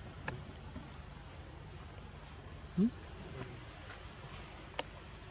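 Steady high-pitched drone of forest insects, with a couple of sharp clicks and one short rising call a little under three seconds in.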